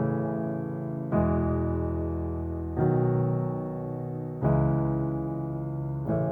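Background music: slow electric piano chords, each struck and left to fade, a new chord about every second and a half.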